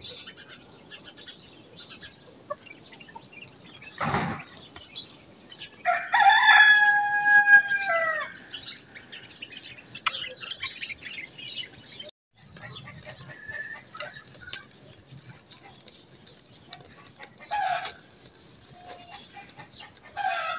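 A domestic rooster crows once, a single crow of about two seconds starting some six seconds in, the loudest sound here. A brief rustle comes just before it, and a few short clucks come later.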